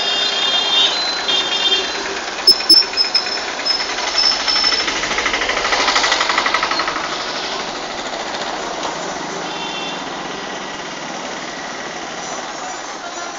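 A small vehicle's engine running with a fast, knocking putter amid street traffic. A few short high-pitched beeps sound in the first two seconds and once more about ten seconds in.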